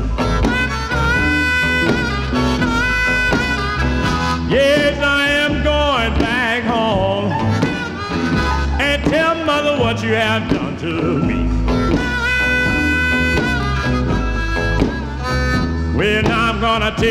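Blues record playing from a vinyl LP, dubbed in mono: an instrumental passage without singing, a lead instrument holding and bending notes over a steady rhythm.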